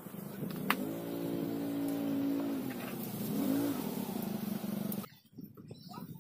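A motor vehicle engine running with a steady drone, its pitch rising twice as it is revved, with one sharp click about a second in. The engine sound cuts off abruptly about five seconds in.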